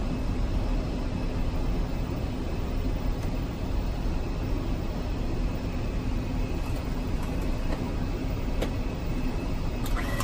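Airliner flight-deck noise in flight: a steady rush and drone with a faint constant tone, and a few light clicks in the second half.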